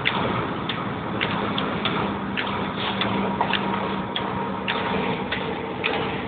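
Car interior while driving on a wet road: a steady hiss of road and tyre noise with a low engine hum under it, broken by sharp, irregular ticks about every half second.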